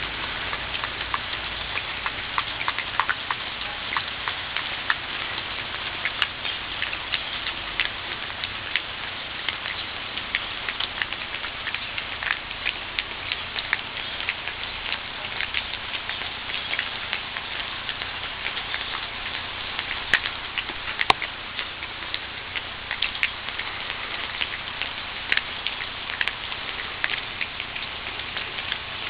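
Steady rain falling, a continuous hiss with many individual drops ticking and pattering close by.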